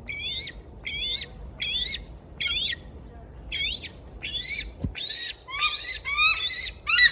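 Bald eagle calling: a long series of high, squeaky, chittering notes about every half second, coming faster and more jumbled in the last two seconds.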